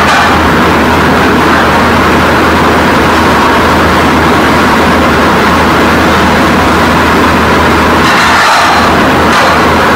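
Loud, steady rushing noise with a low hum underneath, holding an even level throughout.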